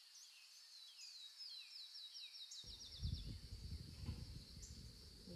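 Faint outdoor ambience: a steady high insect drone, with a bird singing a quick run of repeated slurred notes in the first half. A little past halfway a low, uneven rumble of wind or handling noise on the microphone sets in.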